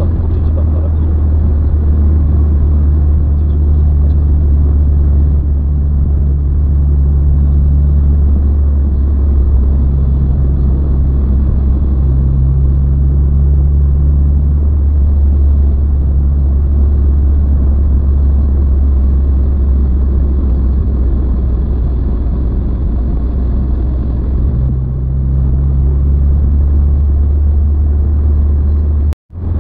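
A car driving at road speed, heard from inside the cabin: a steady low rumble of engine and tyre noise, with a low hum that comes and goes. The sound cuts out for a moment near the end.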